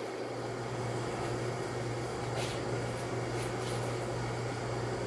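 Commercial rotisserie smoker running with a steady mechanical hum, its motor and fan turning the racks, with a few faint light clicks about halfway through as the turkeys go back onto the racks.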